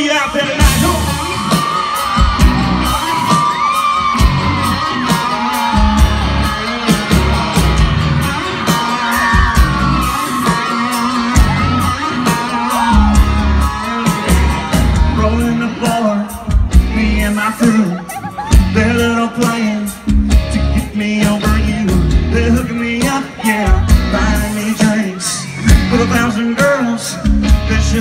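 A live country-pop band playing loudly through a concert PA, with a steady heavy drum and bass beat and singing over it. Audience members yell and whoop close to the phone recording it.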